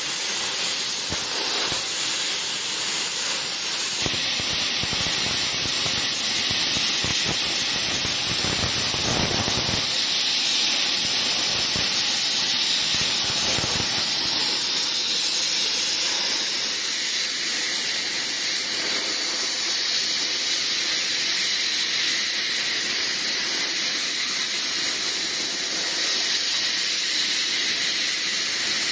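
Plasma cutter torch cutting metal: a steady loud hiss of the plasma arc and air jet, with irregular crackling for several seconds near the start.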